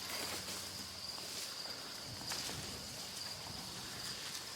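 Insects trilling steadily at a high pitch, with scattered faint clicks and rustles.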